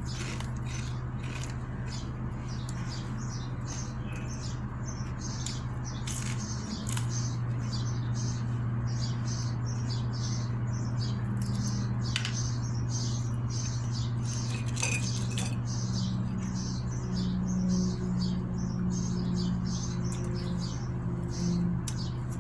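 A person chewing and crunching food close to the microphone: many short, crisp clicks, several a second, over a steady low hum.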